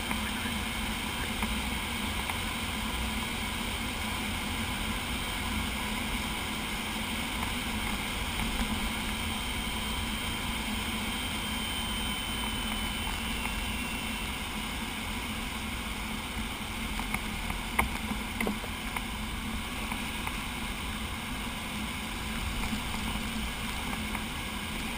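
Steady rush of air over a glider's canopy and fuselage in flight, heard from inside the cockpit, with a faint thin high tone through the first half and a couple of small knocks about two-thirds of the way through.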